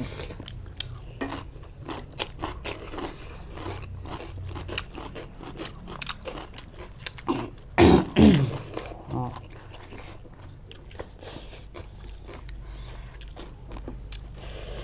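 A person chewing and crunching food close to the microphone, with many short crunchy bites throughout. There is a louder burst of crunching about eight seconds in.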